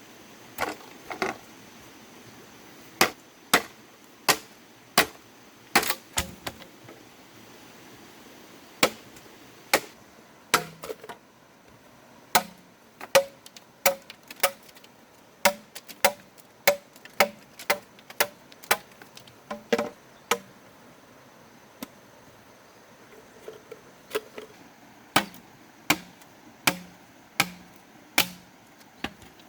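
Hand rice harvesting: a long run of sharp, crisp strikes, about one or two a second, with a couple of short pauses.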